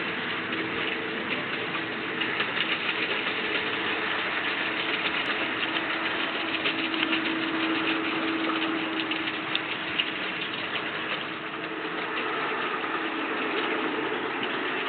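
A small motor running steadily under a noisy wash, with a held hum and a faint crackle on top.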